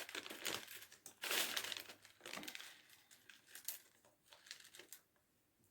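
Plastic Skittles packet crinkling as it is handled, in irregular bursts that thin out towards the end.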